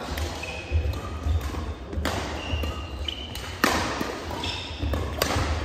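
Badminton rally in a large sports hall: about three sharp racket strikes on the shuttlecock, a second or more apart, with short squeaks of shoes on the court floor and dull footstep thuds between them.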